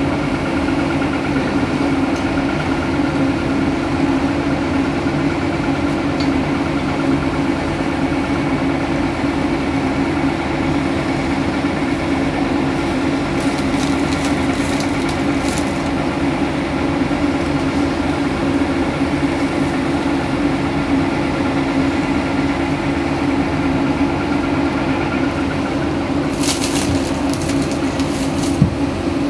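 Caterpillar 330D L hydraulic excavator's diesel engine running steadily under working load as the machine digs, swings and dumps. Dirt rattles and scrapes from the bucket about halfway through and again near the end, with one sharp knock just before it finishes.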